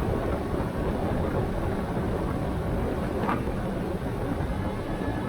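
Strong wind buffeting the microphone: a steady low rushing noise, with a faint brief rising sound about three seconds in.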